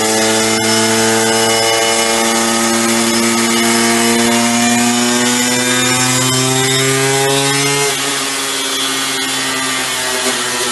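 Hercules motorcycle's tuned 94 cc reed-valve two-stroke single, fitted with a test expansion exhaust, running under load on a dynamometer in sixth gear. Its pitch climbs steadily for about eight seconds during the measurement run, then drops suddenly as the throttle is shut and it runs on at lower revs.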